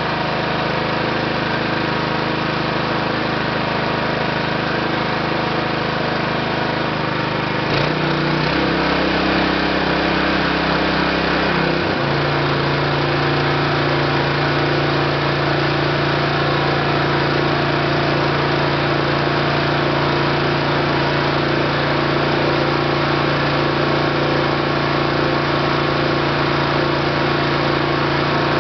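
Small gasoline engine running steadily, driving the conveyor belt of a homemade oil-skimming machine. Its note changes about eight seconds in and again at about twelve seconds, then holds steady.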